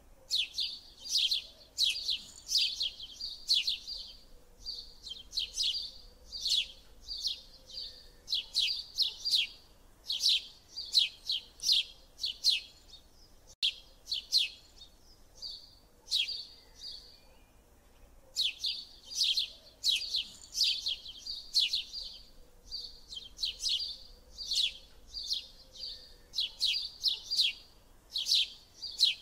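Bird chirping: rapid runs of short, sharp high chirps, several a second, in bouts of a few seconds broken by brief pauses.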